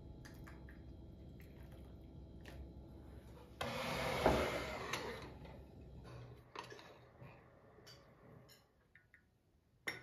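Tableware being handled: a few light clinks and taps, and a louder stretch of noise about four seconds in lasting about a second and a half. Near the end, a tea glass on its saucer is set down on a stone table with a sharp clink.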